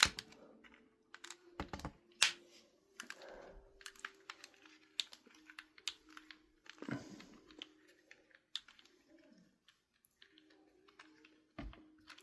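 Irregular small clicks and taps of a precision screwdriver and plastic controller shell as Torx security screws are backed out of an Xbox controller, the sharpest click about two seconds in.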